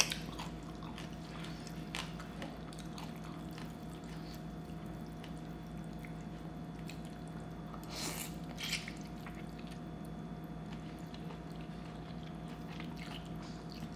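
A person slurping and chewing khanom jeen rice noodles in a wet curry sauce: soft wet mouth sounds and small clicks, with a louder slurp about eight seconds in, over a steady low hum.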